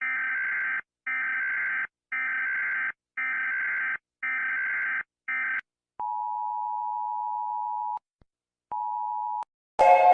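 Emergency alert system alarm: a buzzy electronic beep pulsing about once a second, then a lower steady attention tone held for about two seconds and a short repeat of it. Music comes in just before the end.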